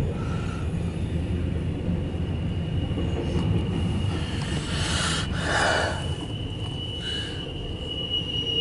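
Intermodal freight train's cars rolling past with a steady low rumble, heard from inside a vehicle cab. A steady high squeal comes in about midway and holds, with a brief rushing swell about five seconds in.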